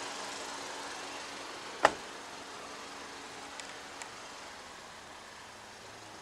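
Steady hum of a 2019 Acura RDX idling, with one sharp click about two seconds in and two faint ticks later.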